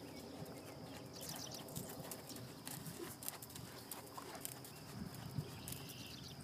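A Thoroughbred horse walking on an arena's sand footing: soft, muffled hoofbeats with faint clicks.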